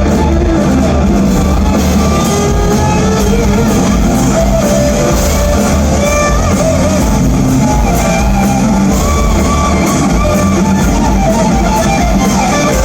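Live rock music played loud by a full band, with distorted electric guitar and bass guitar.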